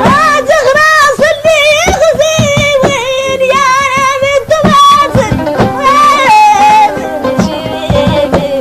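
Mauritanian song: a solo voice sings a long, ornamented melodic line with wide vibrato over plucked string accompaniment and a regular rhythmic pulse.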